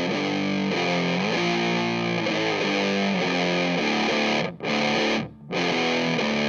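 Electric guitar through a Vick Audio Violet Ram's Head fuzz (a recreation of the '73 Big Muff Ram's Head) and an Orange AD30 amp, playing thick fuzzed chords that change every second or so. Near the end the chords are cut off twice, briefly.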